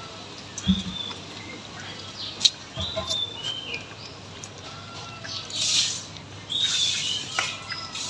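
Puppies eating wet rice from a plastic bowl: chewing and smacking, with sharp clicks and a couple of louder knocks, while small birds chirp in short high calls in the background.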